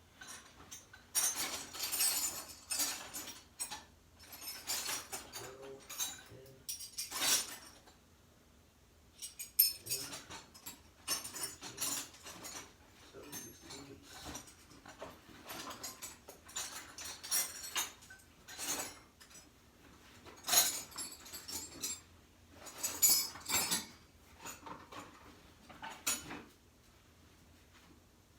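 Metal hand wrenches clinking and clanking against each other and the bench as they are rummaged through and picked up, in irregular bursts of clicks with a short pause partway through.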